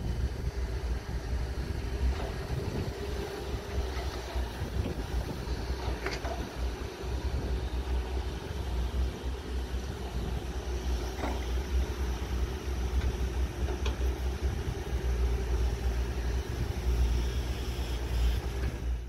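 Diesel engines of two crawler excavators, a Volvo and a Caterpillar 320D, running steadily as they dig, a low hum with a few faint knocks from the work.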